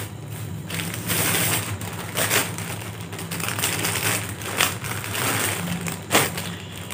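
Rustling and crinkling as new clothes are pulled out of their wrapping, in uneven bursts with sharp crackles.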